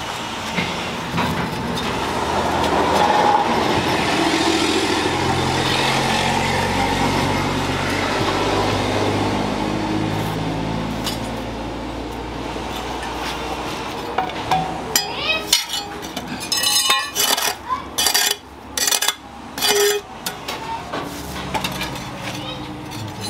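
A steady low hum with a slowly shifting drone, then a run of sharp metallic clinks and knocks, some with a brief ring, starting a little past the middle and lasting about five seconds.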